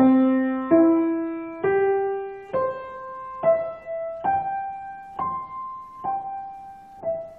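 Piano playing a slow broken-chord arpeggio with the right hand, one note about every second, climbing through two octaves and then coming back down.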